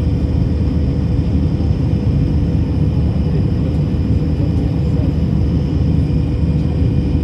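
Steady jet airliner cabin noise in flight: engine and airflow rumble with a faint steady hum above it.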